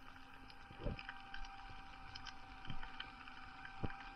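Underwater sound picked up through a camera housing on a dive: a faint steady hum with scattered small clicks and crackles, and a few soft low thumps.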